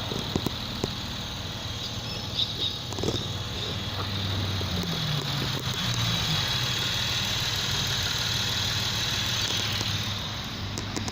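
Holden Commodore's 3.6-litre LGX V6 idling steadily, with a few light knocks in the first three seconds.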